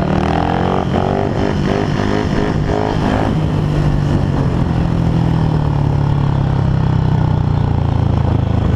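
Speedway bike's 500 cc single-cylinder methanol engine at racing speed, heard from on board the bike. Its pitch rises and falls over the first three seconds as the throttle is worked, then holds steady.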